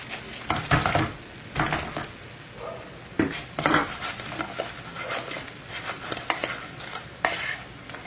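Fried chicken wings dropped into a pan of bubbling butter and salted egg yolk sauce, then tossed and stirred with a wooden spatula: sizzling under irregular knocks and scrapes against the pan.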